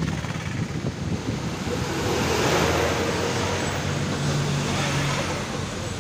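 Road noise of a vehicle driving on a wet road: a steady hiss of tyres on the wet surface mixed with wind, swelling about two seconds in and easing after five seconds.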